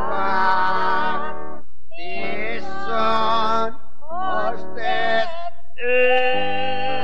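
Singing with accompaniment: a voice holds long, wavering notes in four phrases with short breaks between them, the last held through to the end, over a steady low accompaniment.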